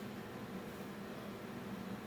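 Steady low hum with a faint even hiss: room tone, with no distinct event.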